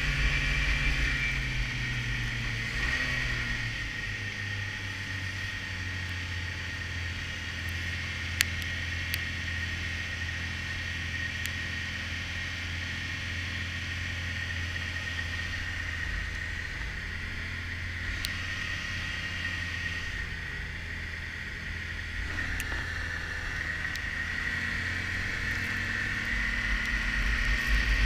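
Snowmobile engine running with a steady high whine over a low hum, growing louder over the last few seconds. A single sharp click about eight seconds in.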